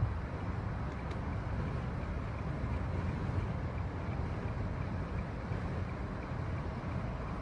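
A car driving along a city street: a steady low rumble of engine and road noise.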